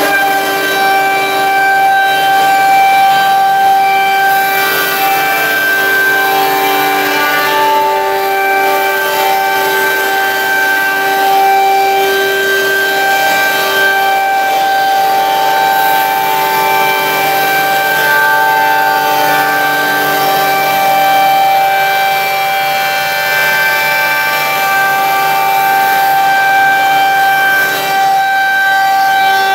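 MX6232 double-side automatic copy shaper running and cutting: a loud, steady high-pitched whine from its spindle cutters shaping a stack of curved wooden blanks, over a hiss, with small shifts in pitch.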